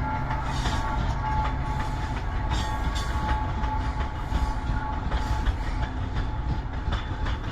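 Freight train hauled by a WAG9HC electric locomotive rolling slowly into a station: a steady low rumble with a thin steady whine over it, and wheels clacking over rail joints, most clearly about two and a half seconds in.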